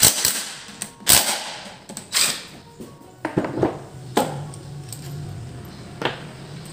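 About six sharp metallic clinks and knocks with a short ring: the steel bearing caps and bolts of a bare Toyota K3-VE engine block being loosened with a socket and lifted off by hand. Faint background music underneath.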